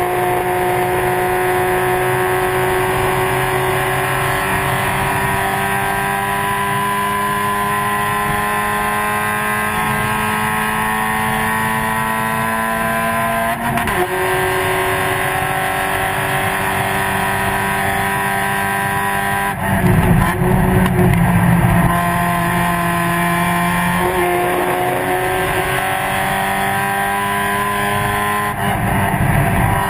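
Spec Miata's four-cylinder race engine at full throttle, heard on board. Its pitch climbs slowly through a long pull, drops sharply at a gear change about 14 seconds in and climbs again. Around 20 seconds in a louder, rough patch lasts a couple of seconds before the engine pulls up again.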